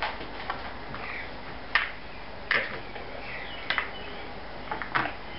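Sharp clicks and knocks of a car power aerial's plastic motor housing being handled on a table as its cover is prised off, about five in all, roughly a second apart.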